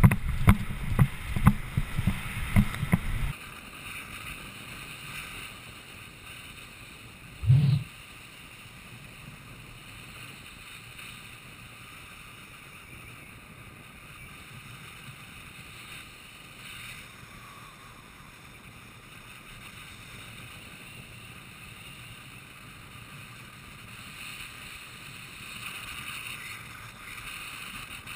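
Steady rush of wind and inline skate wheels rolling fast on asphalt, picked up by a helmet camera on a downhill skater, with one short low thump about seven and a half seconds in. It opens with a few seconds of music with a steady beat that cuts off abruptly.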